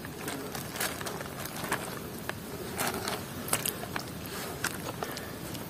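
Soft crinkling of a thin plastic sheet and the light slap of small wet fish being shifted about on it by hand: a few short crackles spread over a steady outdoor hiss.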